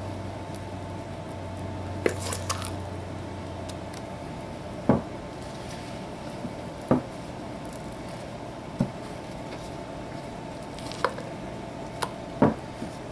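Wooden spoon scooping thick banana bread batter from a metal bowl into a glass loaf pan: wet squishes and short knocks of the spoon against bowl and pan, a few seconds apart.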